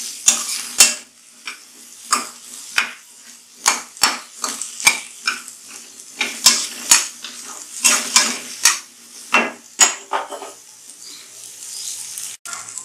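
A metal spatula scraping and clinking against a kadhai as sliced onions are stirred and fried in oil, with a soft sizzle underneath. The clinks come irregularly, two or three a second, and stop near the end, leaving only the sizzle.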